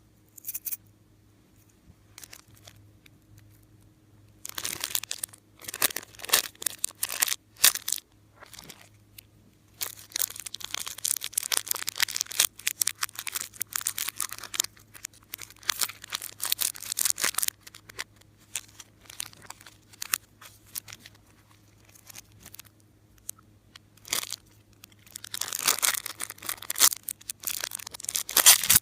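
Crinkly, crackling handling sounds of slime making, in several long bursts with quieter gaps between them.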